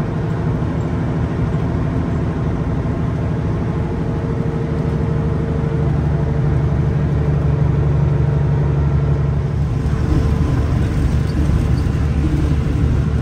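Large diesel truck's engine droning steadily with tyre and road noise, heard from inside the cab while driving on the highway. It grows a little louder about halfway through.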